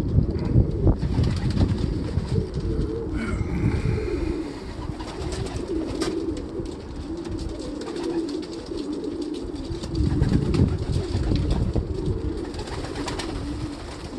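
A flock of domestic pigeons cooing on and off throughout, with low rumbles that are loudest at the start and about ten seconds in.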